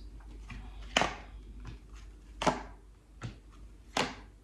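A tarot deck being shuffled by hand: short rustles of cards, with three louder sharp card snaps about a second and a half apart.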